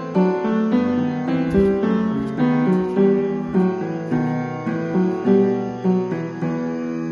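Background piano music: a gentle melody of single notes struck at an even pace, about one every half second.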